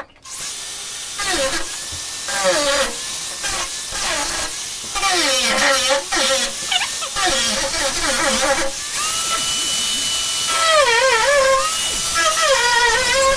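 Angle grinder with a thin cutting disc cutting through the sheet steel of a van door, with a harsh cutting hiss throughout. The motor's whine dips and recovers as the disc is pressed into the metal and eased off. Around nine seconds in it spins freely at a steady pitch for a moment before biting again.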